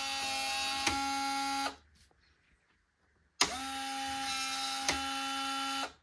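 LOQED Touch smart lock's motor whirring as it drives the lock, in two runs of about two seconds each with a click partway through each run. This motor noise is made every time the door is opened, and the reviewer finds it rather noisy.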